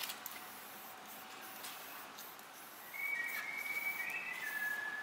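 Someone whistling a few held notes that step down in pitch, starting about three seconds in. Under it is the faint steady hiss of an aerosol spray-paint can spraying.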